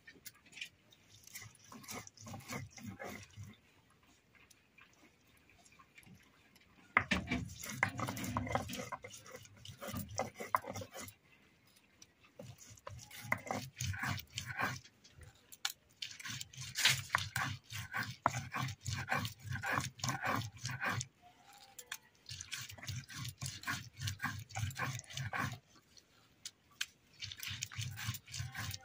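Chopped onions being ground on a stone slab (sil-batta) with a hand-held grinding stone: rhythmic stone-on-stone crushing and scraping strokes in several runs of a few seconds, with short pauses between.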